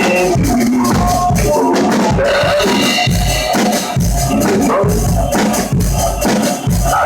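Rock song with a singing voice over bass and a busy drum kit with constant cymbal wash, the drums played along to the track as a drum cover.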